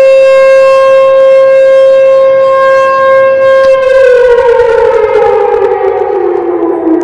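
Outdoor tornado warning siren sounding for a test: it holds one loud, steady tone, then from nearly four seconds in it begins winding down, its pitch falling steadily as the rotor slows.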